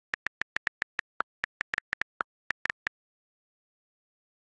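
Keyboard typing sound effect: a run of about eighteen quick, irregular key clicks that stops about three seconds in.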